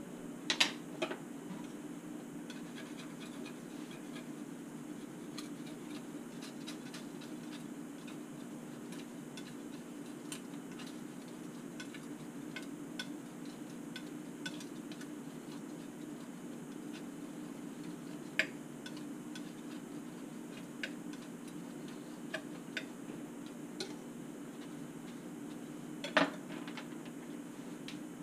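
Small sharp clicks and taps of painting tools being handled on a desk, the loudest near the start, about two-thirds through and near the end, over a steady low room hum.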